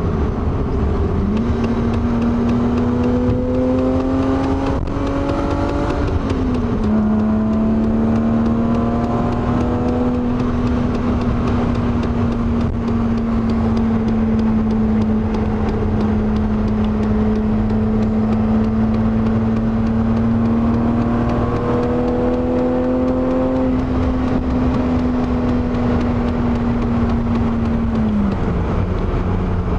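BMW E30's M50 inline-six engine running under load. Its pitch climbs for the first few seconds, drops suddenly a few seconds in, holds nearly steady for a long stretch, and drops again near the end. The recording is meant to catch a knocking that the owner hears from the passenger footwell under hard acceleration, mainly in low gears at high revs.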